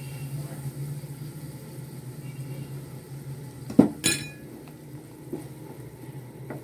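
Chicken pieces being stirred in a nonstick frying pan with a silicone spatula. The spatula knocks sharply against the pan twice, a little under four seconds in, over a steady low hum.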